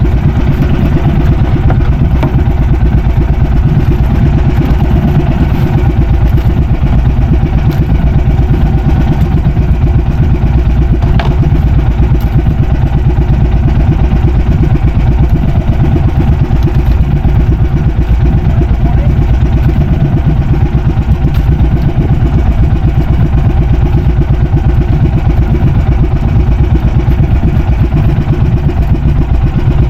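Small boat engine running steadily and loud, with no change in speed.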